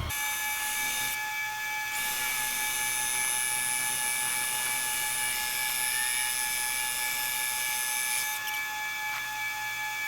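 Metal lathe running with a steady whine made of several fixed tones over a high hiss, the hiss stepping up and down a couple of times, while it spins the pumping unit's high-speed gear shaft.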